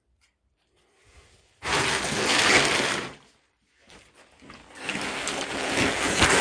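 Plastic sack of pellet cat litter being handled: the bag rustles and crackles while the pellets inside shift, in two spells, the second starting about four and a half seconds in.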